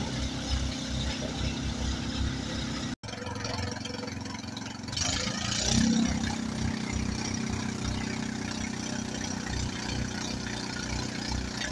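Motorboat engine running steadily, with water rushing and splashing in the boat's wake, loudest about halfway through. The sound drops out for an instant about three seconds in.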